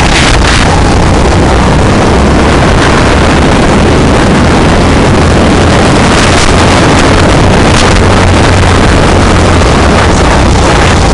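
Go-kart engine running steadily under load, mixed with heavy wind buffeting on the onboard microphone; loud throughout.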